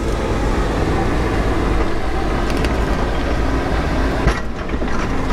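Volvo 140 excavator's diesel engine running under load with its hydraulics working as the bucket handles a large rock. A few light clicks come in the middle, and there is one sharp knock about four seconds in.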